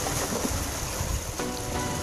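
Background music with held notes that drop out for about a second and come back, over wind buffeting the microphone and the wash of surf on rocks.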